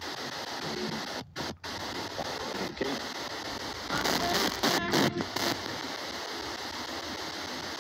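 S-Box ghost scanner (spirit box) sweeping through radio stations: a steady hiss of static, cut by several brief silent gaps and short snatches of radio sound around the middle.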